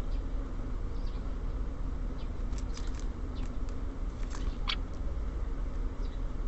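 Small songbirds giving a few short chirps and calls, clustered about halfway through, with one call sweeping downward near the two-thirds mark. Under them runs a steady low rumble.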